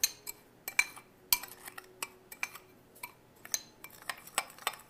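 A metal spoon clinks against a small glass bowl while stirring cinnamon and sugar together. There are a dozen or so light, irregular clinks, some ringing briefly.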